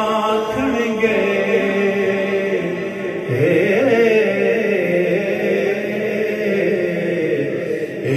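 A man chanting a devotional recitation in long, held melodic lines, the pitch sliding up and down near the middle.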